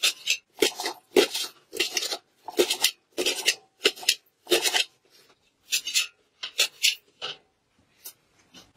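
A knife chopping through a bunch of thin green stalks against the bottom of an upturned steel bowl. Short scraping cuts come about two a second, with a brief pause about five seconds in.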